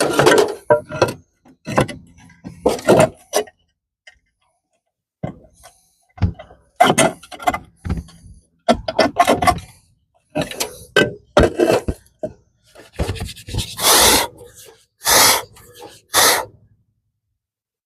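Short, separate bursts of scraping and knocking as concrete or clay roof tiles are handled and set in place. The loudest bursts come near the end.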